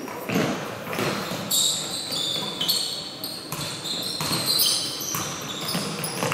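Basketball game play: the ball bouncing on the court several times, with sneakers squeaking in short high squeals.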